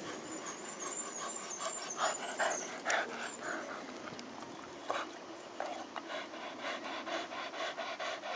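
Dog panting hard, an even rhythm of about three breaths a second from about halfway through. A few short, sharp, louder sounds come about two to three seconds in.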